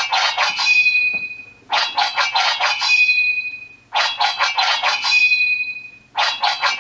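Seiko RAIDEN NR539W digital alarm clock sounding one of its electronic alarm tones: bursts of rapid, bell-like electronic strikes, each ending on a short held high tone, repeating about every two seconds.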